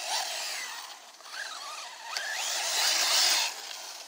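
Arrma Typhon RC buggy's brushless electric motor whining as it is driven on a 5S battery setup, the pitch wavering and then rising sharply about two seconds in as it accelerates. A loud burst of gritty tyre noise on rocky ground follows, the loudest part, and drops away shortly before the end.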